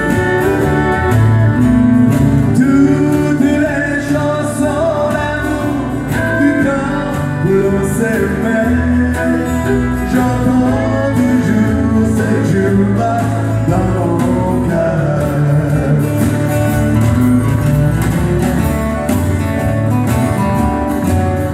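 Live country-western music led by a strummed acoustic guitar.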